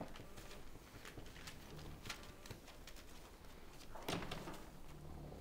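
Faint scuffling and light taps of a five-week-old mastiff puppy playing on the floor, with one brief louder rustle about four seconds in.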